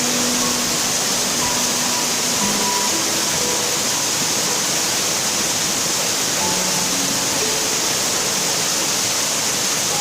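Waterfall rushing, a steady loud hiss of falling water that starts abruptly at the outset, with soft, slow ambient music notes playing faintly beneath it.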